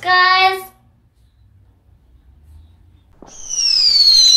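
Fireworks going off, starting suddenly about three seconds in: several falling whistles over a crackling hiss with sharp pops.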